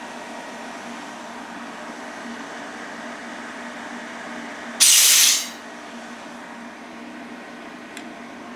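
JTS Comp100 portable airgun compressor running steadily with a low hum. A little under five seconds in, a sharp burst of air hiss lasts under a second, and then the machine runs on slightly quieter.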